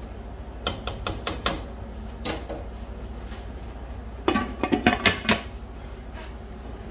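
A plastic spatula knocking a few times against a non-stick wok, then a glass lid clattering with rapid clinks as it is set onto the wok, about four seconds in; the clatter is the loudest part.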